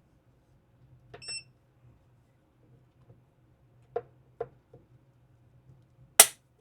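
A short electronic beep from a digital force gauge about a second in, then three light clicks. Near the end comes a single sharp click as the Glock 19 Gen 6's trigger breaks under the gauge's pull during a trigger-weight measurement.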